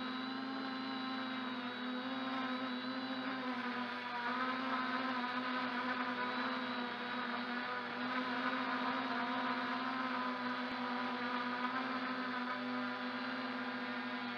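MJX Bugs 2W quadcopter's brushless motors and propellers whining steadily, heard close up from a camera mounted beneath the drone in flight. Their pitch and level swell slightly now and then.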